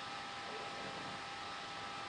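Steady hiss of a recording's background noise, with two faint steady high tones running through it; no music or voice.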